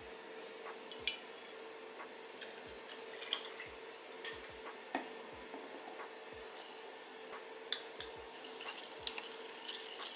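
Milk tea poured into a tall drinking glass, trickling and splashing, with scattered light clinks and knocks of glass and a metal spoon against glass and the table.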